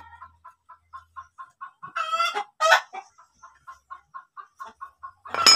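Chickens: a hen clucking in short, evenly spaced clucks, about four a second. Two louder calls come about two seconds in, and a louder call starts near the end.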